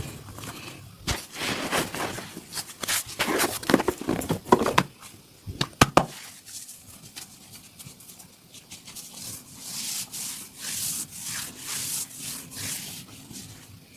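Hands rubbing and pressing on skin and clothing in a vigorous upper-body massage: irregular scraping strokes, two sharp snaps about six seconds in, then rhythmic brushing strokes about two a second.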